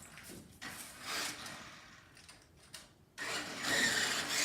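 Toy remote-control car's small electric motor and gears whirring, louder and steady from about three seconds in.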